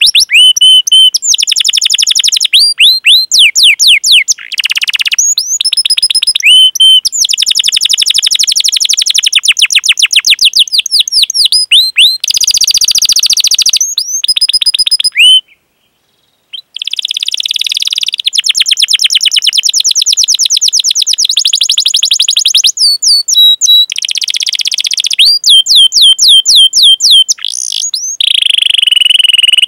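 Domestic canary singing: rapidly repeated high sweeping 'cuit cuit' call notes alternating with fast rolling trills. The song breaks off for about a second a little past halfway.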